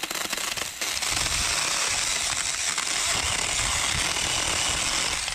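Battery-powered 4-inch handheld mini chainsaw running and cutting through a live sapling stem: a steady buzz of the motor and chain chewing wood. It gets louder about a second in as the chain bites.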